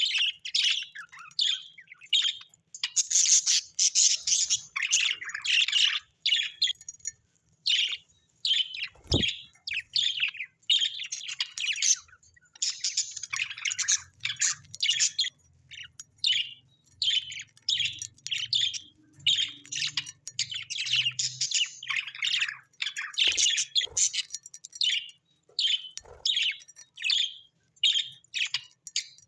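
Small birds chattering in a dense, continuous run of short, high chirps and tweets, with a single sharp knock about nine seconds in.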